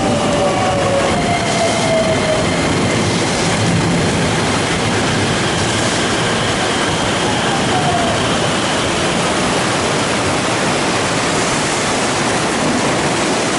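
Heavy rain pouring down while a JR West electric commuter train (223 or 225 series) runs in along the platform. Its motor whine falls in pitch as it slows and brakes.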